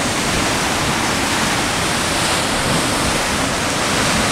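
Heavy sea surf breaking and churning against a rocky shore: a steady, loud rush of white water.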